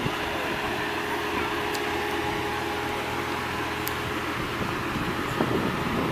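Lamborghini Gallardo Spyder's V10 engine idling steadily.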